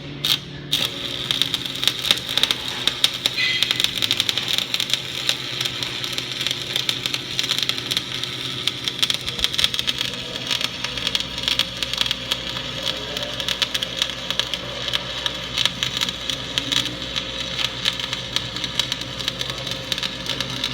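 Stick-welding arc from a 6013 electrode at about 120 amps, struck just under a second in and then burning steadily with a dense, even crackle and sizzle as a bead is run. A low hum sits underneath.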